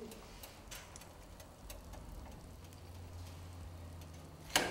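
Faint crackling and ticking of burning paper, with a single sharp click near the end.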